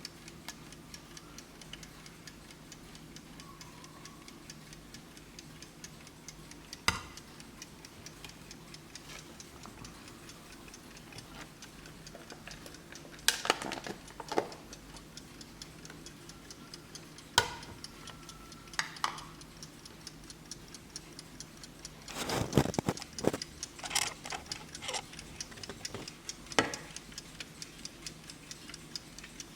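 Vintage Blessing alarm clock ticking fast and evenly, with a few louder clicks and knocks, the busiest cluster about three-quarters of the way through.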